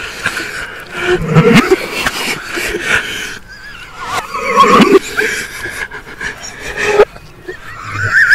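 Several men laughing loudly in bursts of high, wavering cries, apparently played backwards, so that some bursts swell up and then cut off abruptly.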